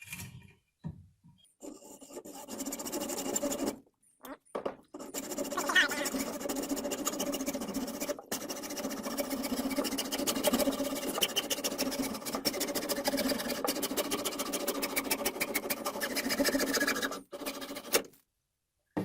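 A saw cutting through plastic PVC pipe with a fast, even rasping stroke, broken by two short pauses and stopping a couple of seconds before the end. It ends with a second ring cut free.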